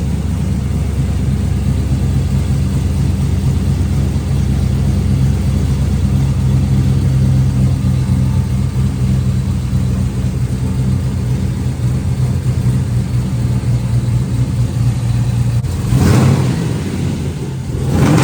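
LS V8 engine idling steadily, now firing on all eight cylinders after a new fuel injector on cylinder one cured its misfire. Near the end come two brief louder surges.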